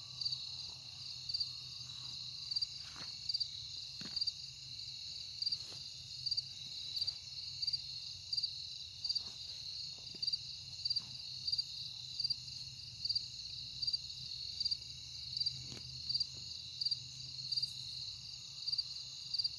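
Crickets chirping steadily: a continuous high trill with a pulse about once a second, and a few soft rustles and knocks of cloth being handled.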